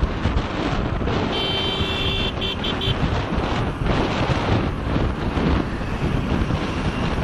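Wind buffeting the phone's microphone while riding along a road, with a steady rush of moving-vehicle noise. About a second in, a vehicle horn honks once long and then three short times.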